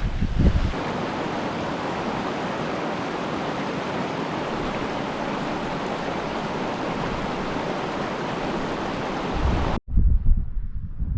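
A steady, even rushing noise outdoors that cuts off suddenly near the end. After the cut comes gusty wind buffeting the microphone with a low rumble.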